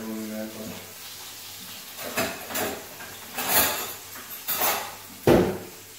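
Dishes, pots and utensils clattering as they are handled on a kitchen counter: about five separate knocks and clinks starting about two seconds in, the last one a heavier thud and the loudest.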